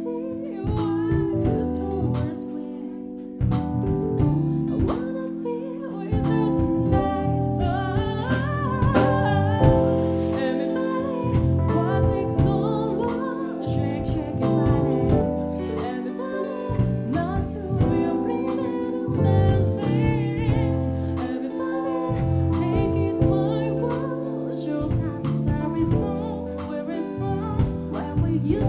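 A woman singing a melody into a microphone with a live band of piano, electric guitar, electric bass and drum kit.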